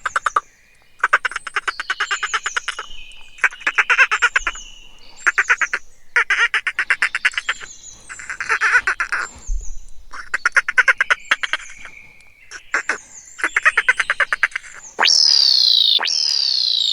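A frog croaking in a series of about nine rapid, rattling pulsed trills, each up to about a second and a half long, with faint high chirps behind. Near the end, a run of loud falling whistle tones cuts in.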